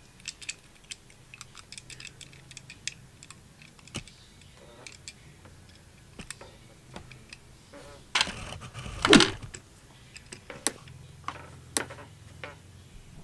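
Small irregular clicks and taps of fingers handling a 1/64-scale metal model car, with a louder rustle lasting about a second, some eight seconds in.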